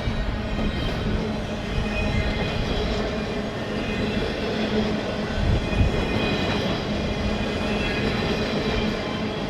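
CN intermodal freight train's cars rolling slowly past on the rails: a steady rumble with faint high wheel squeal at times.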